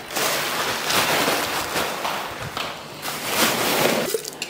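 Plastic packaging, a plastic bag and clear plastic film, rustling and crinkling as it is handled. The noise swells and dips and stops about four seconds in.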